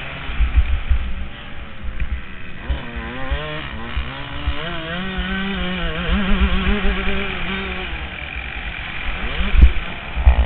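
Yamaha YZ125 two-stroke motocross engine heard from the rider's helmet, revving up and down repeatedly as the throttle is worked through the corners. Wind buffeting on the helmet microphone runs underneath it, with a couple of louder thumps near the end.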